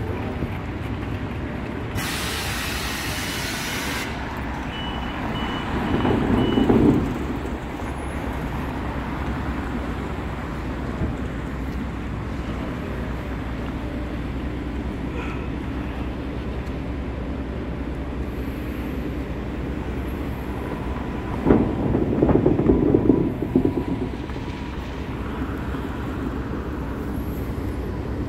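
City street traffic: a steady low rumble of vehicles, a hiss lasting about two seconds near the start, and two louder vehicles going by, a short one about six seconds in and a longer one about three-quarters of the way through.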